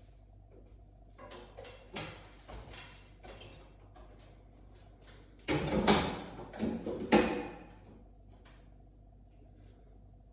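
An aluminium stepladder being climbed: its rungs clank and knock under the climber's feet, loudest in two sharp knocks about six and seven seconds in. Softer rustling and light knocks come before it.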